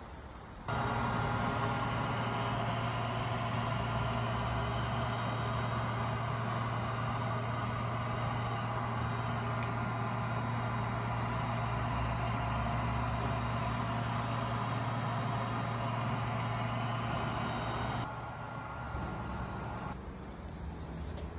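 2004 Subaru WRX STI's turbocharged flat-four idling steadily through a 3-inch stainless steel custom exhaust, with a deep, even drone and no revving. It starts abruptly about a second in and drops noticeably quieter near the end.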